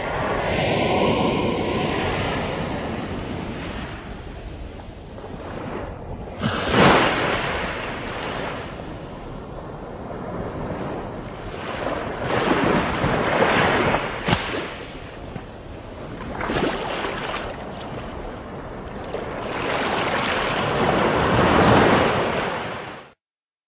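Sea waves breaking on the shore, the surf swelling and falling back in repeated surges, then cutting off suddenly near the end.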